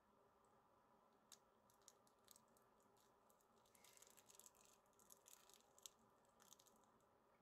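Near silence: faint room tone with a scatter of faint, short clicks, busiest about four to six seconds in.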